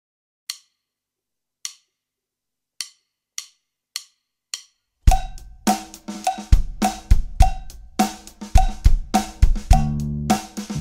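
A count-in of six sharp clicks, two slow and then four twice as fast. About five seconds in, a drum kit groove on hi-hat, snare and bass drum starts together with a backing track carrying a bass line.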